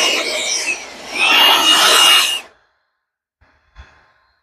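DeWalt cordless blower running with a steady high motor whine and rushing air. It eases off about half a second in, spins back up at about a second, and cuts off about two and a half seconds in. A faint knock comes near the end.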